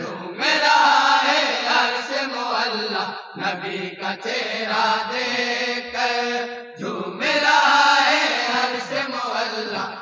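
Group of men chanting a naat together in chorus, unaccompanied voices, with short breaks about three and seven seconds in.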